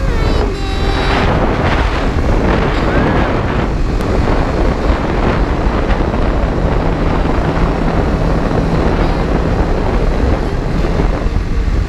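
Wind rushing over the microphone of a BMW G310GS single-cylinder motorcycle riding at road speed, with its engine running under the wind; a steady low engine tone shows from about halfway through.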